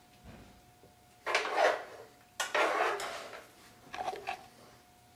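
A cooking utensil scraping and clattering in a frying pan as cooked apple slices are scooped out. There are two long scrapes, a little over a second in and about two and a half seconds in, then a few short scrapes near four seconds.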